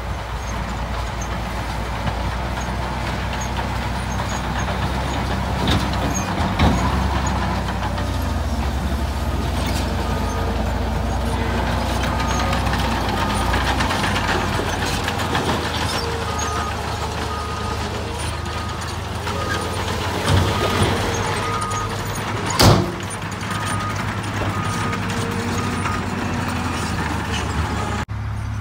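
Diesel dump truck engine running under load as the raised bed tips out soil and rock, with a steady rush of material sliding. From about halfway a short electronic warning beep repeats over and over. A single sharp bang, the loudest sound, comes a few seconds before the end.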